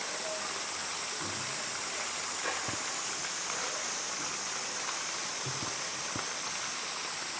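Steady rush of running water with an even, hissy character, and a few faint clicks or knocks over it.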